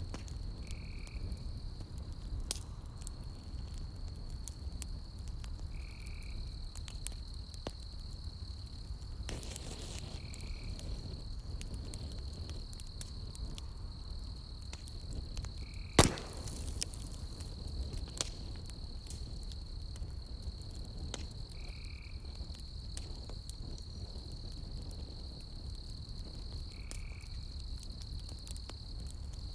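Campfire burning logs, crackling with scattered pops and one sharp, loud pop about halfway through, over a low steady rumble. Behind it a steady high insect trill, and a short call that repeats about every five seconds.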